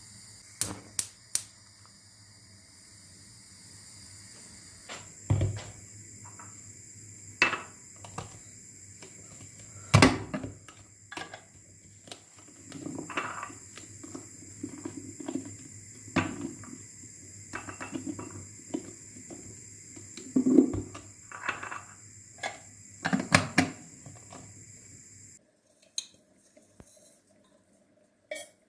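Dishes and cutlery clinking and knocking in a scatter of separate clatters, the loudest knocks about 10 and 20 seconds in.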